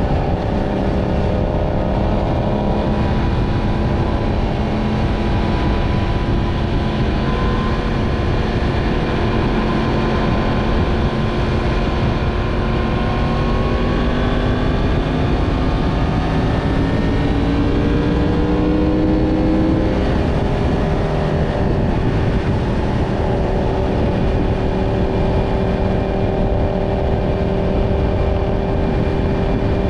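Yamaha MT-10's inline-four engine running under way over a steady rushing noise. The engine pitch climbs steadily through the middle of the stretch, then drops about two-thirds in as it shifts up, and holds steady after that.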